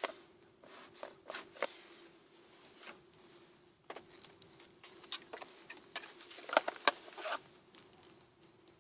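Metal hive tool prying and knocking at a wooden beehive's lid and inner cover: a string of sharp clicks and scrapes, loudest about a second in and again about two-thirds through. Under it runs a steady low hum, fitting the colony's bees.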